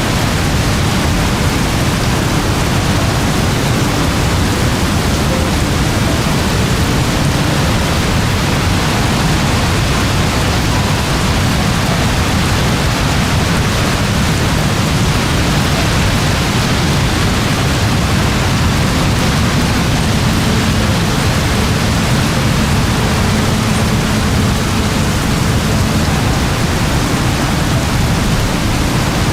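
Very heavy rain falling steadily, a dense even hiss with a deep low rumble underneath.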